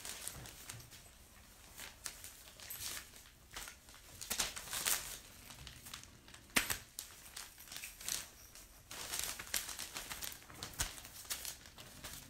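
Irregular crinkling and rustling in uneven bursts, with a couple of sharp clicks, one about six and a half seconds in and another near eleven seconds.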